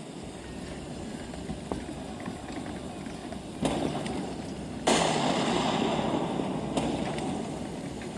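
Dubbed battle sound effects over a steady hiss: a sudden bang, then about a second later a louder blast whose noise fades away over a few seconds, with a small click near the end.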